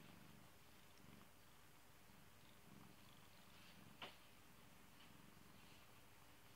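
A tabby cat purring faintly while being stroked, the purr swelling and fading in slow waves about once a second. A single sharp click about four seconds in.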